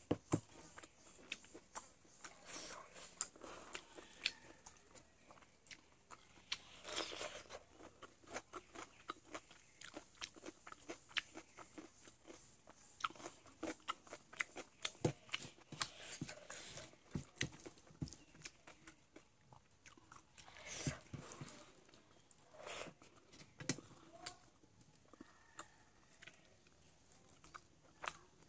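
A person eating chicken, with irregular chewing and crunching and sharp clicks of bites throughout.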